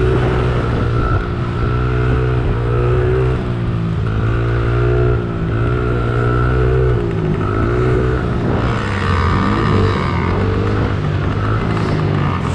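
Small 50cc two-stroke motocross bike engine revving up and down as the throttle is worked over the dirt track, the pitch rising and falling every second or two. From about two-thirds of the way in, a second small dirt bike's engine joins it close alongside.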